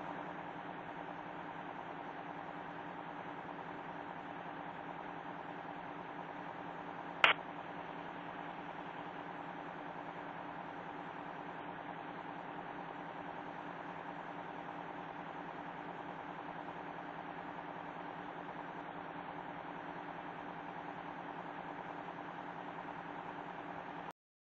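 Steady hum and hiss of an open communications audio line, with one sharp click about seven seconds in. It cuts off abruptly near the end.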